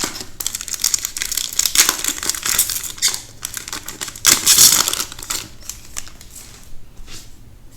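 Magic: The Gathering set booster pack being torn open, its plastic wrapper crinkling and crackling. The crackling is loudest a little past halfway, then dies down to faint rustling.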